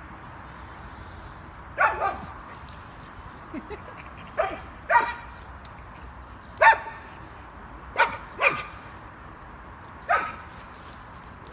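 A dog barking in short, falling barks, about eight of them at irregular intervals, some in quick pairs.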